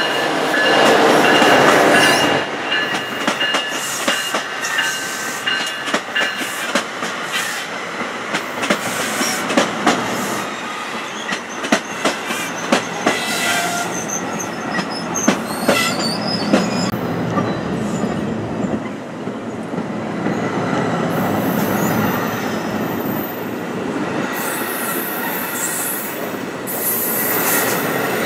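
An NJ Transit ALP-45DP locomotive running in diesel mode passes with its multilevel coaches, loudest in the first two seconds as the locomotive goes by. After it, the coaches roll past with a steady rush, their wheels clicking over the rail joints, with brief high squeals about halfway through.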